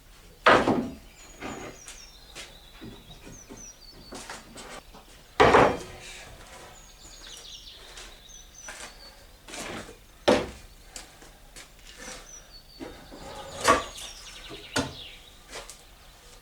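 Irregular loud wooden knocks and thuds, about five strong ones a few seconds apart, from boards and bench parts being struck or set down while a workbench is taken apart and rebuilt. Small birds chirp faintly in the background.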